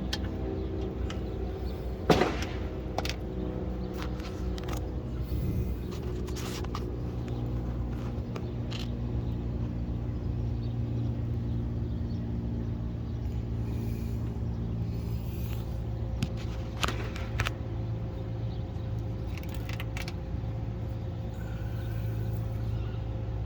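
305 small-block Chevy V8 running steadily at idle, with scattered sharp clicks and ticks, the loudest about two seconds in. This is the ticking noise that the owner suspects comes from a failing torque converter or a cracked flexplate.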